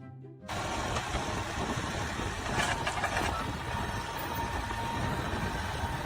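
A machine or motor running with a steady, noisy sound, cutting in suddenly about half a second in.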